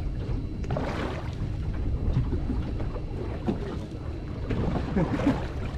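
Wind blowing hard across the microphone on a small boat drifting on choppy bay water, a steady low rushing.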